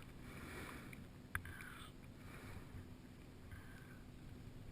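Faint breathing through the nose right at the microphone, soft breaths about once a second, with one sharp click about a second and a half in.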